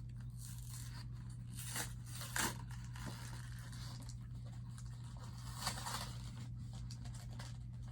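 Pokémon card product packaging being torn and pulled open by hand: scattered tearing and crinkling, loudest about two and a half seconds in, over a steady low hum.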